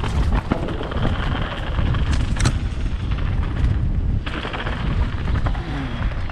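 Enduro mountain bike riding fast down a bumpy dirt trail: a heavy rumble of tyres and wind on the camera's microphone, broken by sharp knocks as the bike hits bumps, the strongest about two and a half seconds in.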